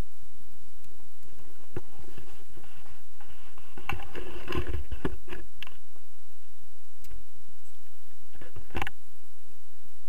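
Rustling with scattered clicks and knocks, denser and with a low thump about four to five and a half seconds in. This is handling noise on a handheld action-camera pole.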